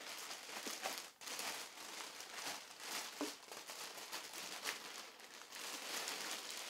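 Clear plastic packaging bag crinkling and rustling without a break as it is handled and pulled out of a cardboard box with the embroidery unit inside it.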